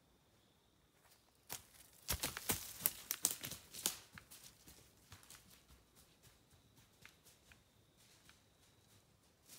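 Rustling and crackling, densest for about two seconds from around two seconds in, then thinning to scattered crackles.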